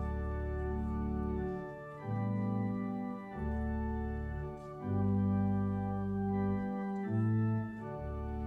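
Instrumental music of slow, held chords that change every second or so over deep sustained bass notes.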